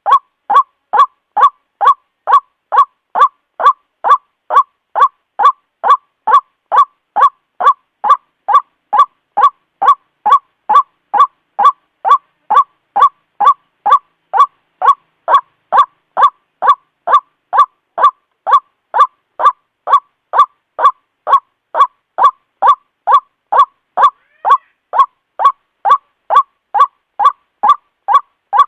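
White-breasted waterhen calls: a short, honking note repeated steadily about twice a second. This is a looped lure recording used to draw the birds in.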